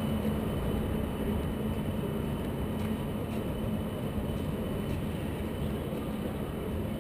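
CAF Urbos tram running away along street track, a low rumble that slowly fades as it recedes, over steady city street noise.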